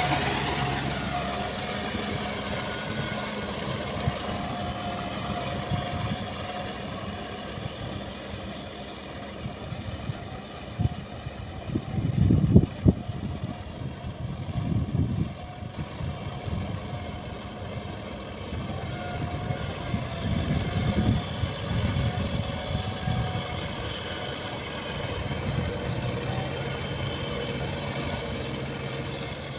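Kubota farm tractor's diesel engine running steadily under load while plowing a flooded rice paddy, with a few louder low rumbles in the middle.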